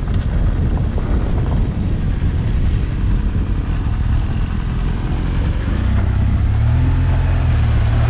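Motorcycle engine running as the bike rides along a rough dirt and gravel track, heard from the rider's seat as a dense low rumble mixed with tyre and ride noise. The engine note turns steadier and slightly louder in the last couple of seconds.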